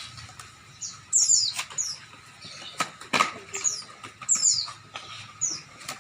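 Short high-pitched chirps falling in pitch, about eight of them, often in quick pairs, over a faint rustle, with a few sharp knocks, the loudest about three seconds in.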